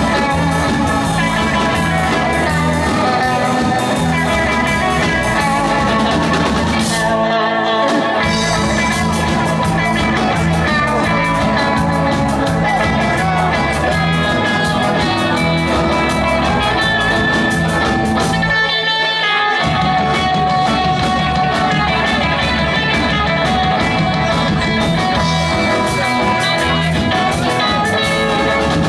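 Rock and roll band playing, led by guitar over bass and drums. The low end drops out briefly twice, about seven and about eighteen seconds in, before the band comes back in.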